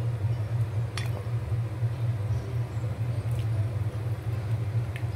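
A steady low hum with light clinks of a serving spoon against cookware, one about a second in and another near the end.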